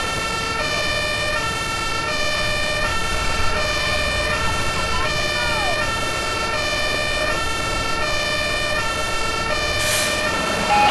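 German fire engine's two-tone siren (Martinshorn) sounding steadily, switching between a lower and a higher pitch about every three-quarters of a second. A steady high tone runs beneath it, and a short rush of noise comes near the end.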